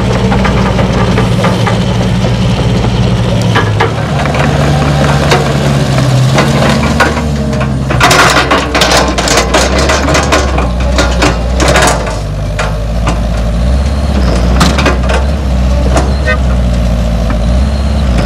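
Diesel engine of a CAT 312B tracked excavator running steadily, its note shifting about four seconds in. From about eight to twelve seconds in there is a burst of clattering and knocks.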